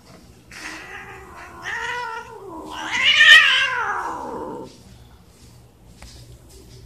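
A cat giving a long, wavering meow that rises and falls in pitch, starting about half a second in, loudest about three seconds in, and fading out just before the five-second mark.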